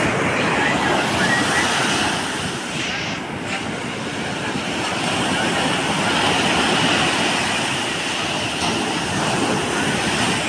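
Ocean surf breaking at the shoreline and washing up a sand beach, swelling twice as waves come in.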